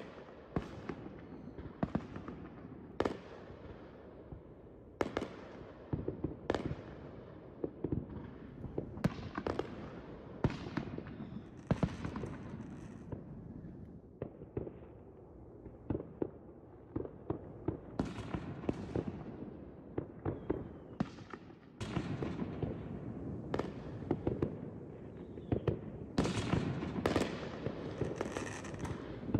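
Fireworks going off: a steady run of irregular sharp bangs, each trailing off in an echo, over continuous crackling that grows louder and denser in the last third.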